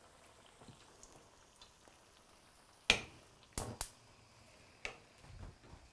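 Choux-dough zeppole frying in hot oil at 375 degrees, a faint steady sizzle. A few sharp clicks or pops cut through it: the loudest about three seconds in, two close together just after, and one more near five seconds.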